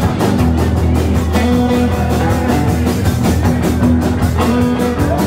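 Live rock-and-roll band playing an instrumental passage with no singing: strummed acoustic guitar, hollow-body electric guitar, electric bass and drum kit, with a steady beat.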